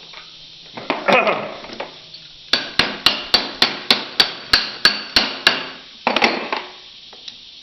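Hammering on metal: a quick run of about a dozen sharp blows at roughly four a second, then two more, after a brief clatter about a second in.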